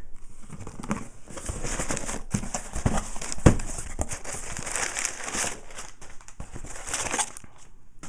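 Crumpled packing paper crinkling and rustling as a cardboard shipping box is opened and hands dig through it. There is a single sharp knock about three and a half seconds in.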